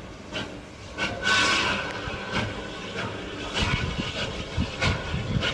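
Steam locomotive approaching slowly, with a run of exhaust chuffs at uneven spacing and a burst of steam hiss about a second in.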